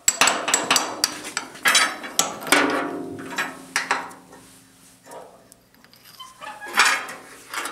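Irregular metallic clinks and knocks of hand tools on the lift-arm pins and linkage of a Ford 8N tractor, a few ringing briefly, as the lift arms are disconnected.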